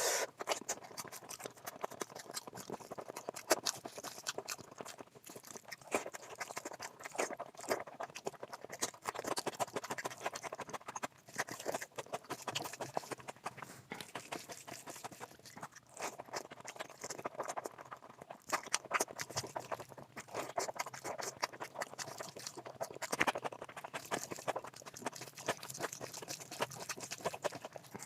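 Close-up wet eating sounds of mutton fat curry with rice: steady irregular chewing and lip-smacking clicks.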